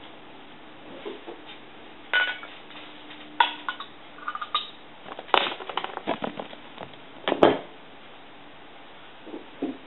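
Beer bottle being opened with a metal bottle opener: a run of sharp metallic clicks and clinks as the opener works the crown cap, the loudest about three quarters of the way through.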